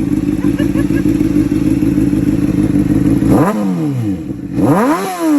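Honda CBR600RR's inline-four engine idling steadily through a TOCE aftermarket exhaust, running after a jump start. About three seconds in the throttle is blipped, the pitch shooting up and falling back, then blipped again near the end.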